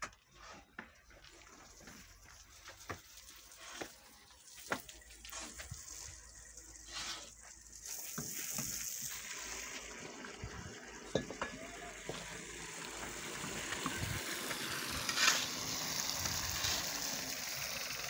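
Water running from a hose onto a concrete roof slab: a steady hiss that builds from about eight seconds in. Before it come scattered short knocks and scrapes of bricks and tools.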